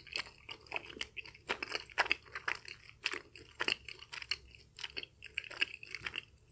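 Close-miked chewing of sticky Korean rice cakes (tteokbokki) in spicy sauce: a quick, irregular run of short, wet mouth clicks, about four a second.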